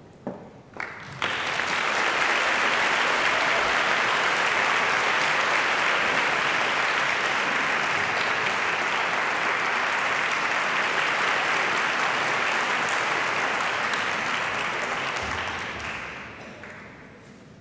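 Audience applauding in a concert hall. The clapping starts about a second in after a few sharp clicks, holds steady, and dies away near the end.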